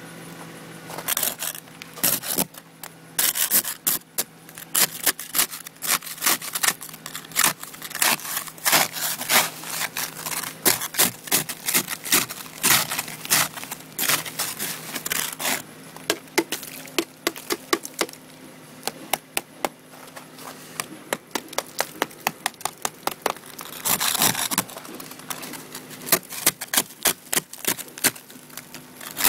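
Plastic ice scraper chipping and scraping thick ice off a car windshield in many short, quick strokes, breaking it loose in chunks, with a few longer scrapes near the start and toward the end.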